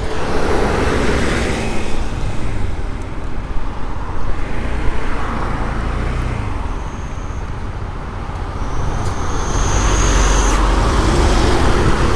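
Riding noise of a 2021 Honda PCX scooter under way: wind on the helmet-mounted microphone over the scooter's single-cylinder engine, with road traffic. The rumble grows louder and deeper about ten seconds in.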